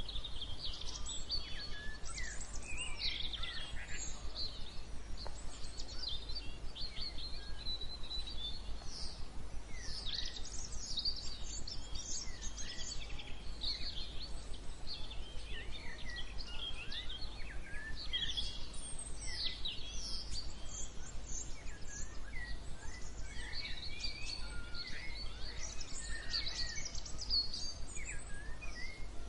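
Many songbirds chirping and singing at once, a continuous chorus of overlapping short calls and trills, over a steady low rumble.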